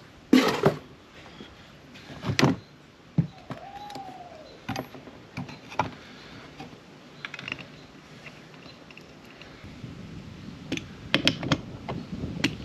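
Hand tools and metal parts being handled during engine-bay disassembly: scattered clicks and clanks, a short squeak about four seconds in, and a quicker run of clicks near the end.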